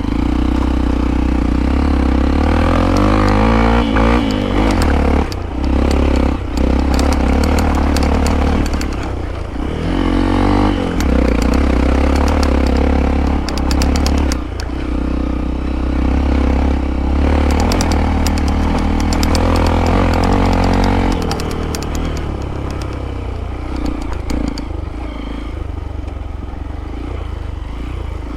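Hero Impulse motorcycle's single-cylinder engine running on a rough dirt trail, the throttle opening and closing, with rattles and knocks from the bike over the bumps. About 21 seconds in the engine drops to a lower, steadier note.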